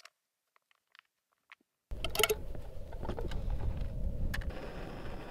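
Near silence for about two seconds. Then a steady low rumble of wind on the microphone, with a few light knocks and rustles as food is tipped from a packet and a can into a metal cooking pot.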